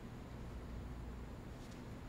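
A very quiet pause in a live chamber performance: steady low hum and hall room tone, with one faint click near the end.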